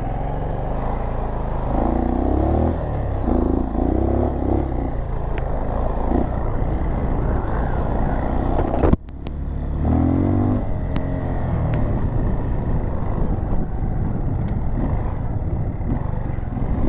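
Dual-sport motorcycle engine running under way, its pitch rising as it revs up a few times, with wind noise on the microphone. The sound drops out abruptly for a moment about nine seconds in.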